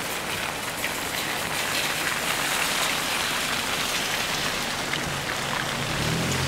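Steady rain falling on a pond's surface, an even hiss of many drops hitting the water. Near the end a low steady hum comes in underneath.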